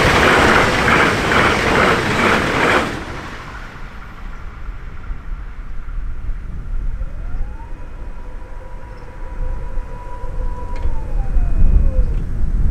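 Road vehicle passing the level crossing close by, cutting off suddenly about three seconds in. Then, quieter, a faint tone rises, holds for about three seconds and falls away, and another vehicle's rumble builds near the end.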